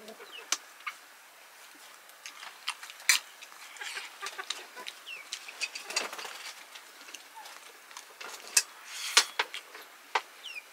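Chickens clucking and chirping, with scattered sharp clicks and clinks of eating from steel plates.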